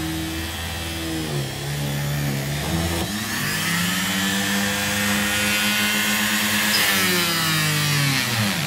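Total TG501032 mini grinder (rotary tool) running through its flexible shaft while its bit works into a wooden board. Its motor whine dips and recovers in pitch several times as the bit bears on the wood, then falls steeply near the end.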